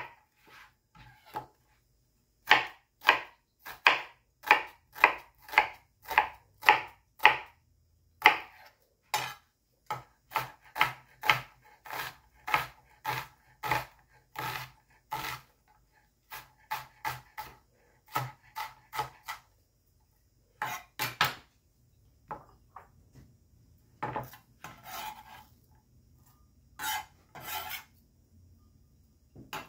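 Chef's knife dicing an onion on a plastic cutting board: runs of sharp knocks, two or three a second, with short pauses between runs.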